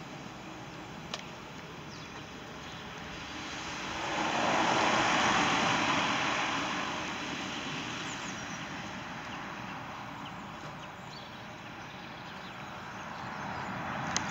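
A passing vehicle on a wet road: tyre hiss and engine noise swell about four seconds in, peak, and fade away over a few seconds, and another vehicle approaches near the end.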